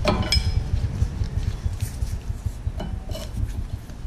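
Flathead screwdriver prying a 2018 Honda Accord's rear brake pad out of its steel caliper bracket: scattered sharp metallic clinks and scrapes with brief ringing, over a low background rumble.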